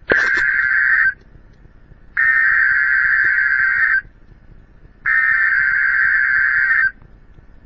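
Emergency Alert System SAME digital data bursts: three bursts of buzzy, warbling data tone, each one to two seconds long, about a second apart. The first is cut shorter and opens with a click. These are the coded data bursts that frame an EAS alert.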